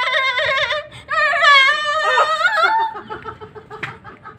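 A person making a silly high-pitched voice sound: two long warbling, wavering squeals, the second rising and falling, then softer broken noises that trail off into giggling.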